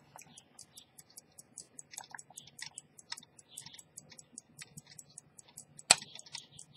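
Antique pocket watch movement ticking fast and evenly, about five ticks a second, with one much louder sharp click near the end.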